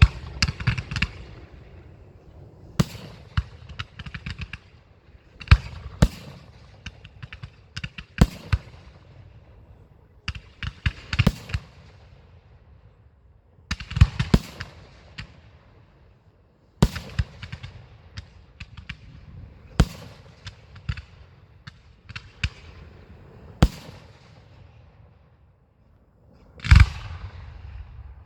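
Fireworks going off: clusters of sharp bangs, each followed by crackling, coming every two to three seconds.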